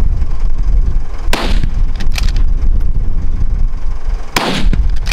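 Two gunshots about three seconds apart, fired at a running wild boar, each with a short echoing tail, over a steady low rumble.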